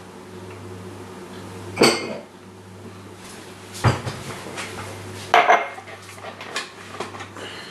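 A drinking glass and a glass blender jug knocking and clinking on a granite worktop as the glass is set down and the jug is lifted off the blender base: three sharp knocks about two seconds apart, then a few lighter clinks.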